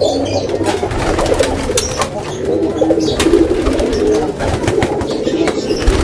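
Several domestic pigeons cooing over one another, with wings flapping as young pigeons are taken in hand.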